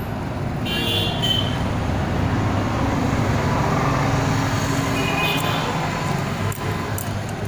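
Steady background noise of vehicle engines and road traffic, with a low engine hum and brief high-pitched tones about a second in and again past five seconds.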